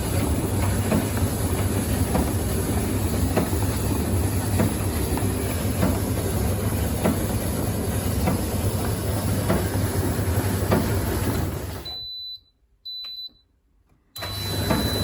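Hoover tumble dryer running with its casing open: the motor hums steadily and the drum turns with a light rattle of clicks, showing the motor now starts and spins on its new run capacitor. Near the end the sound drops out for about two seconds, with a couple of short high beeps, then comes back.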